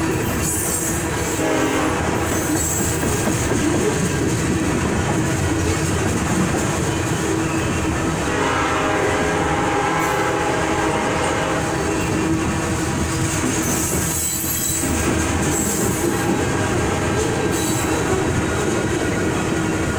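Freight train of covered hopper cars rolling past close by: steady wheel-on-rail noise. A squealing tone from the wheels joins in for a couple of seconds about halfway through.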